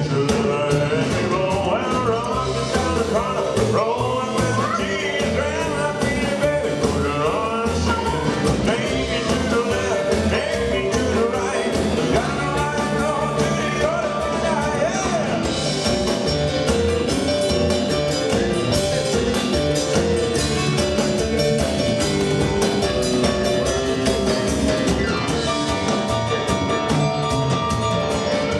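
Live rockabilly band playing rock and roll: a man singing over hollow-body electric guitar, upright double bass, drums and keyboard. About halfway through, the singing gives way to an instrumental passage.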